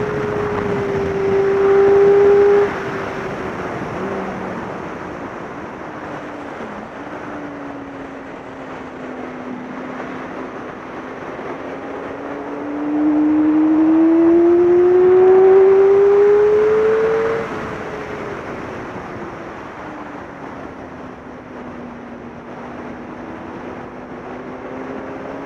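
Yamaha sportbike engine heard from onboard at track speed, over wind rush. The throttle shuts off about three seconds in and the engine note sinks through a bend. It opens hard again around thirteen seconds, with the note climbing louder until it cuts back at about seventeen seconds, then falls and starts rising again near the end.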